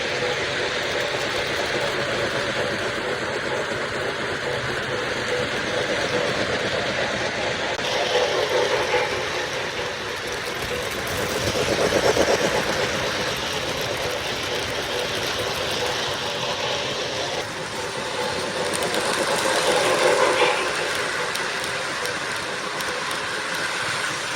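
O gauge model trains running on the layout track: a steady mechanical rattle of wheels and motors, swelling louder three times as trains pass close.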